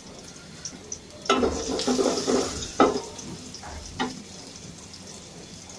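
Sliced onions frying in oil in an aluminium pot, sizzling steadily. About a second in they are stirred with a utensil scraping the pot, followed by two sharp knocks of the utensil against the metal.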